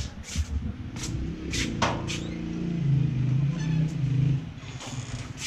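Footsteps walking on a concrete walkway, with a steady beat of short scuffs about every half second. A low, steady drone swells up in the middle for about two seconds and is the loudest sound.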